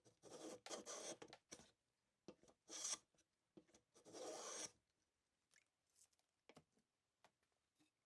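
Hand plane shaving a purpleheart board: a handful of separate rasping strokes in the first five seconds, the last one the longest, then a few faint clicks.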